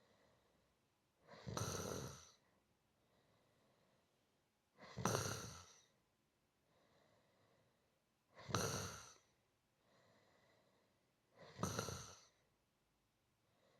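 A person snoring in a slow, regular rhythm: four snores about three and a half seconds apart, with faint breaths between them.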